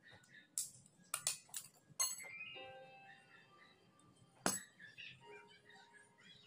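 Metal scooter torque-drive parts and a screwdriver clinking as they are worked and handled: a handful of sharp clinks in the first two seconds and one louder clink about halfway through, some followed by a brief metallic ring.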